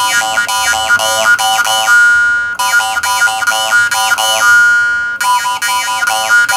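Jaw harp made by Shaun Jones being plucked in a quick, steady rhythm. Its twanging drone carries overtones that sweep up and down, shaped by the player's mouth, and harder plucks renew the ring about every two and a half seconds.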